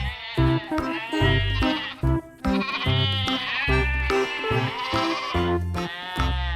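Background music with a pulsing bass line under a wavering, warbling high lead line.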